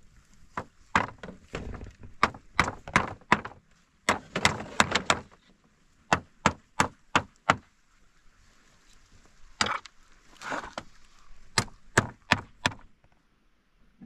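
Sharp blows striking wood in quick runs of three to five, about three a second, with short pauses between runs.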